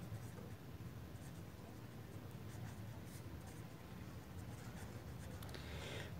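Pen writing on paper: faint scratching strokes, busier near the end, over a steady low hum.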